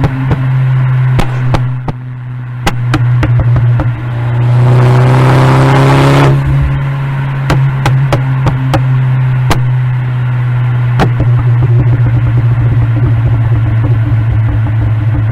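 Turbocharged 2011 Audi A4 B8 (K04 turbo, full bolt-ons) driving, its engine droning steadily while the exhaust pops and crackles in sharp, irregular cracks. About four seconds in, the engine revs up in a short rising burst that cuts off suddenly, and more pops and crackles follow.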